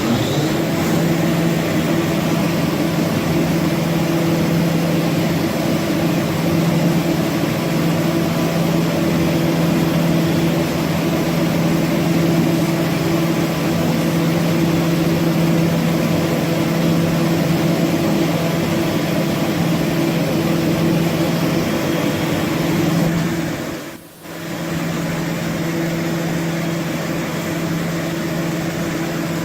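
HOMAG BOF 41/K CNC machining center running: a steady mechanical hum with a constant hiss over it, which cuts out for a moment about three-quarters of the way through and then returns.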